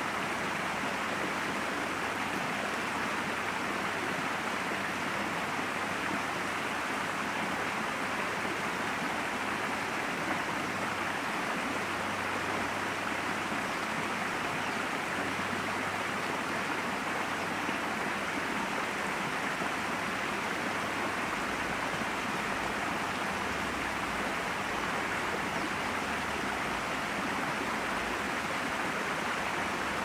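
Steady rushing of a flowing river or stream.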